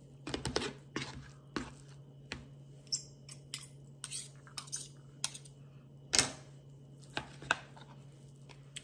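Knife and fork cutting cooked chicken thighs in a plastic bowl: irregular clicks and taps of the utensils against the bowl, the two loudest about six and seven and a half seconds in.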